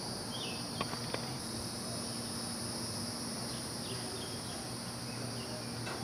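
Steady high-pitched drone of insects, in two even bands, with a faint low hum beneath and a few faint chirps. Two small clicks sound about a second in.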